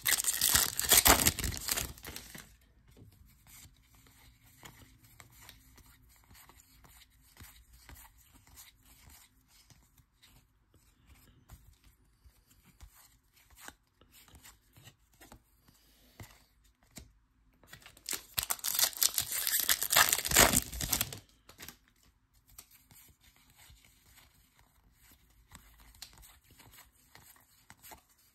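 A foil-plastic baseball card pack wrapper being torn open: a loud crinkly rip lasting about two seconds at the start, and another at about 18 seconds in as the next pack is opened. Between the rips, only faint soft ticks of the cards being handled.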